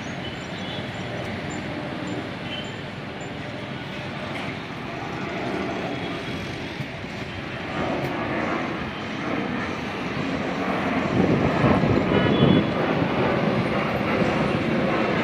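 Busy road traffic from cars, buses and motorbikes passing below, a continuous din that swells louder for a couple of seconds near the end.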